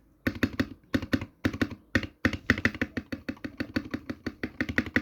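Spacebar of a 65% mechanical keyboard with linear switches pressed rapidly over and over: a fast run of clacks, several a second.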